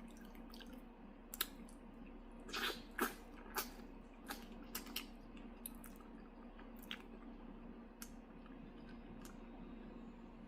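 Mouth sounds of eating chicken feet: scattered wet smacks and clicks of chewing, with a cluster of louder ones a few seconds in. A steady low hum runs underneath.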